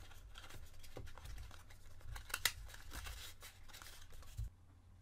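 Small cardboard box being opened by hand: cardboard flaps and packaging scraping and rustling, with a run of small clicks, the sharpest about two and a half seconds in. The handling stops about four and a half seconds in.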